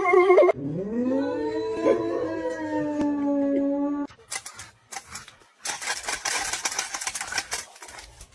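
A dog howling: one long howl that rises in pitch at the start and then holds for about three seconds. Later comes a hissing noise lasting about two seconds.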